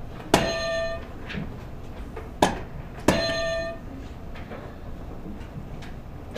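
Electronic buzzer buttons pressed twice, each sounding a short buzz of about half a second. Between the two buzzes there is a single sharp click.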